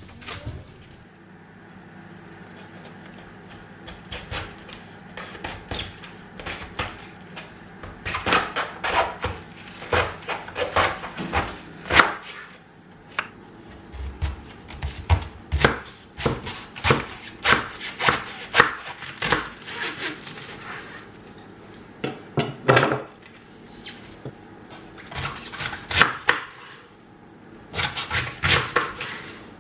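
Knife chopping food on a wooden cutting board. A few soft cuts come first, then runs of quick chops, a few a second, with short pauses between.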